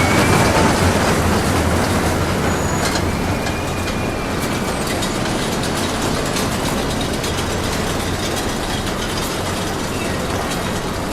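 Roller coaster train running along its track: a steady, loud rumble with many rattling clicks and a brief faint high squeal about three seconds in.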